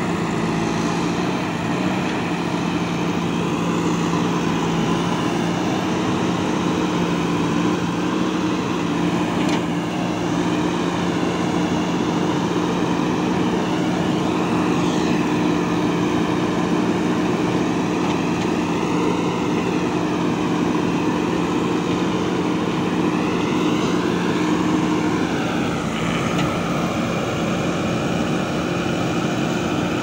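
JCB 3DX backhoe loader's diesel engine running steadily as the backhoe arm works. A higher whine rises and falls in pitch several times, mostly in the second half.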